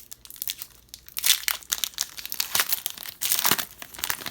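Foil wrapper of a hockey card pack crinkling and tearing as it is ripped open, in uneven crackles that come in two louder spells.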